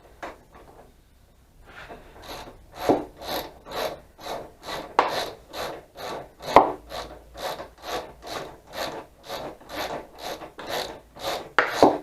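Hand ratchet wrench being worked back and forth to back out a motorcycle fuel-tank mounting bolt, a short rasping stroke about twice a second that starts about two seconds in.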